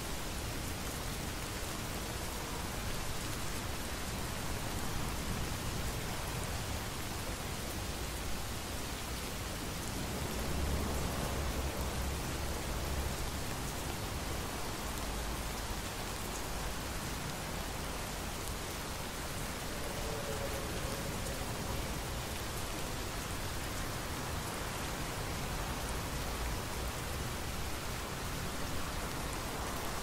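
Steady heavy rain falling on hard surfaces. A low rumble of distant thunder swells about ten seconds in.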